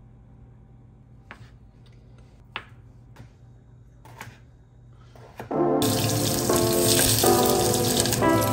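A few quiet taps of a kitchen knife cutting through soft food onto a cutting board. About five and a half seconds in, a loud, steady hiss of food cooking in a saucepan on an induction hob comes in.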